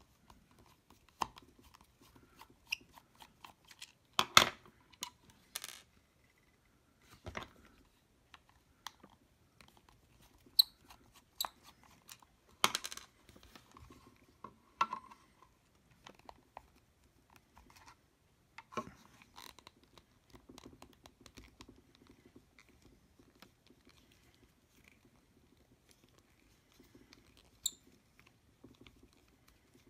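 Small screwdriver unscrewing the screws from the plastic housing of a cordless soldering iron: scattered clicks, short scrapes and plastic handling noises, a few seconds apart.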